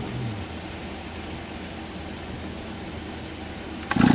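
Steady rushing noise of an electric shop fan running, with a brief knock near the end.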